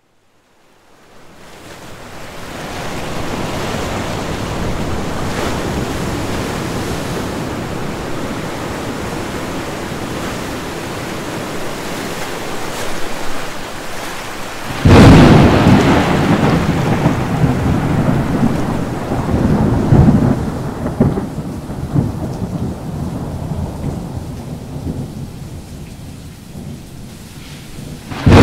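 Steady rain fading in, then a sudden loud thunderclap about halfway through that rumbles on with further peaks and slowly dies away; another sharp crash starts right at the end.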